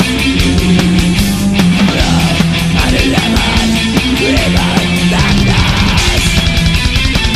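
Heavy metal instrumental passage: distorted guitars over a dense, fast drum beat, with a lead line bending up and down in pitch through the middle.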